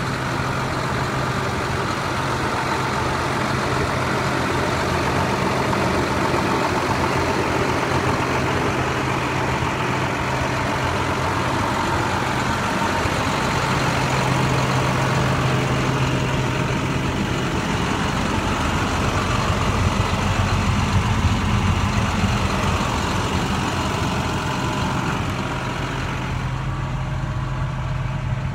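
The MaxxForce DT inline-six diesel of a 2012 International 4300 dump truck idling steadily. Near the end the sound turns duller, heard from inside the cab.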